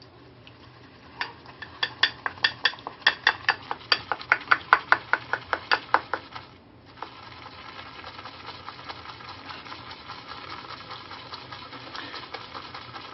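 Damp boar hair shaving brush working a puck of Master Well shaving soap with no added water. First comes a run of quick knocks against the puck, about four a second. From about seven seconds in it is swirled in a steady swishing, the start of building lather on the puck.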